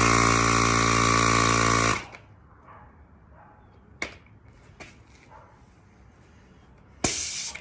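Electric tyre inflator motor buzzing steadily as it pumps up a BMX inner tube to about 60 PSI, cutting off about two seconds in. A few faint clicks follow. Near the end a short sharp hiss of air escapes from the valve, about a pound of pressure lost.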